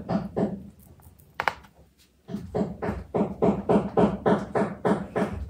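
Rapid, even knocking at about five or six strokes a second, starting a little after two seconds in and following a few scattered knocks.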